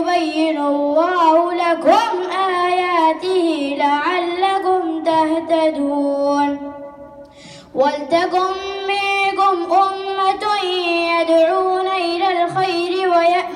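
A boy chanting a Quran recitation into a hand-held microphone, in long, held melodic phrases with ornamented turns. He breaks off for a breath about halfway through, then starts a new phrase.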